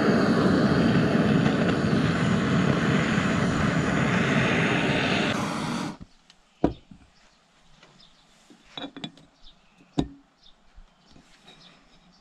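Handheld gas torch burning with a steady hiss as it heats the bearing seat of an aluminium two-stroke crankcase half, warming it to take the bearing; the hiss cuts off suddenly about halfway through. Two sharp knocks and a few faint clinks of metal parts follow.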